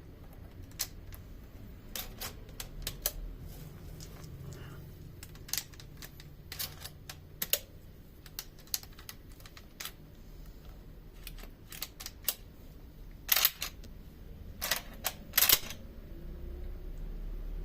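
Irregular sharp clicks and light knocks of small metal rifle parts being handled, with a few louder clicks about three quarters of the way through.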